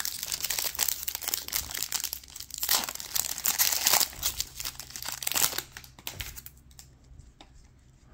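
Foil trading-card pack being torn open and its wrapper crinkled by hand, a dense crackling that dies down about six and a half seconds in, leaving a few faint clicks.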